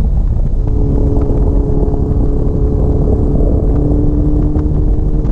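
Honda CBX750 cafe racer's four-cylinder engine running at a steady road speed, heard from the rider's seat under heavy wind rumble on the microphone. The engine note drops away briefly at the start and comes back about half a second in.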